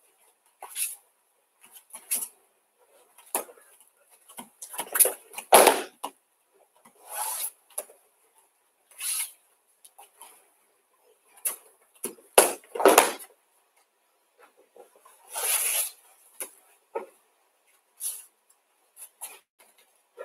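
Bare feet thumping and shuffling on judo tatami mats and a cloth judo jacket rustling, in irregular short bursts every second or so, as a judoka repeatedly turns in for uchi mata, hops and sweeps a throwing dummy with ko uchi gari.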